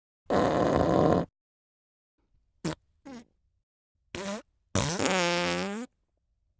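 A string of five separate farts. The first is about a second long and buzzy, then come three short ones. The last is longer and more tonal, near the end.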